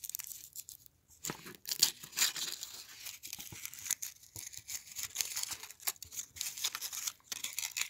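Purple aluminium foil wrapper of a Hershey's dark chocolate Kiss crinkling and tearing as fingers peel it off the chocolate, in irregular crackles.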